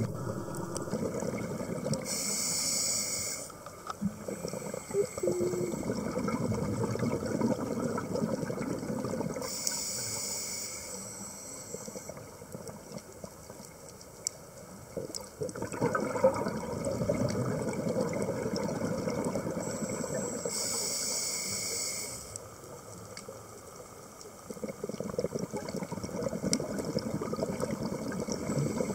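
A scuba diver's regulator breathing underwater: three sharp hissing inhalations, about 2, 10 and 21 seconds in, each followed by several seconds of bubbly, gurgling exhaled air.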